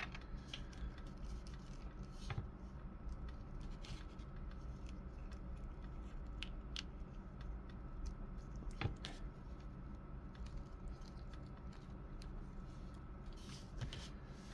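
Faint, scattered clicks and taps of a small plastic action figure and its accessories being handled, a few seconds apart, over a steady low hum.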